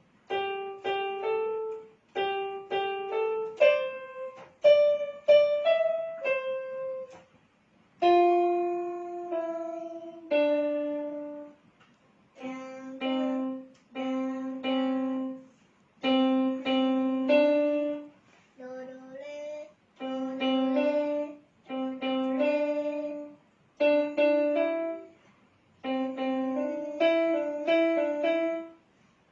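A song melody being practised on an electronic keyboard, played one note at a time. The notes come in short phrases of about two seconds, with a brief pause between each phrase.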